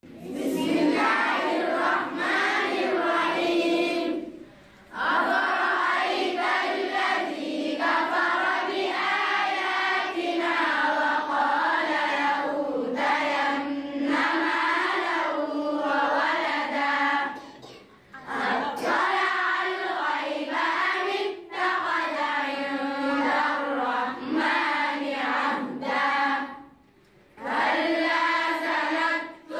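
A large group of young girls reciting the Quran aloud together in unison, in long chanted phrases with short pauses between them, about 4.5, 18 and 27 seconds in.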